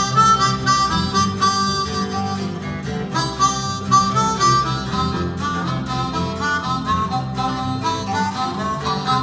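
A bluegrass band's instrumental intro: a harmonica plays the melody over steady acoustic guitar strumming.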